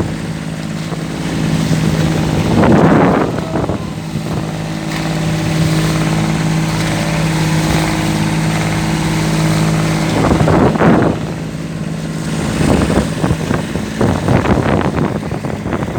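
Small boat engine running at a steady speed, with louder noisy bursts about three seconds in, around eleven seconds and again near the end.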